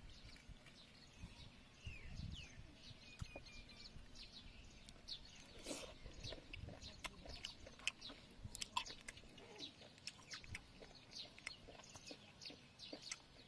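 Faint chewing and scattered small clicks from someone eating cooked snails picked from their shells with a toothpick, with birds chirping in the background.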